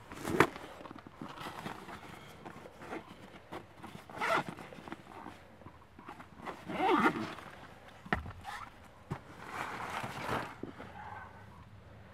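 A backpack's zipper being worked open, with the bag's fabric rustling and its contents being rummaged through, in several separate bursts with a few sharp knocks; the loudest burst comes about seven seconds in.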